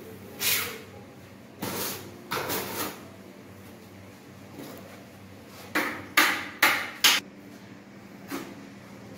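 Trowel scraping and slapping tile adhesive, in short separate scrapes, with a quick run of four sharper scrapes about six to seven seconds in.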